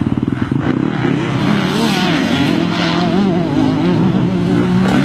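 KTM 150 two-stroke motocross bike's single-cylinder engine revving hard, its pitch rising and falling quickly as the throttle is worked.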